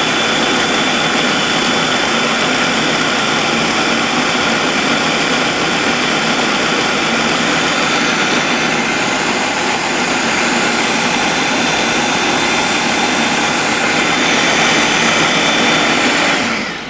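Food processor motor running steadily while puréeing black beans into a smooth dip, then winding down just before the end as it is switched off.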